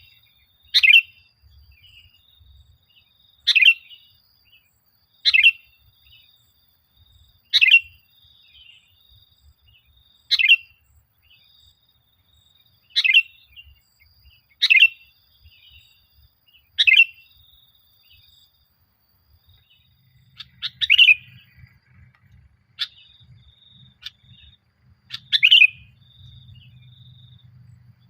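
Sooty-headed bulbul (kutilang) calling: short, loud notes, each a quick downward sweep, repeated about every two seconds, with faint high chirping in the gaps between them.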